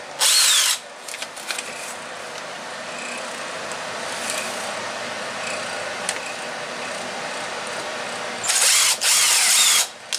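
Ridgid cordless drill spinning up in short trigger bursts as a small bit bores screw pilot holes through a paper template into a pine board: a brief burst just after the start and a longer one near the end.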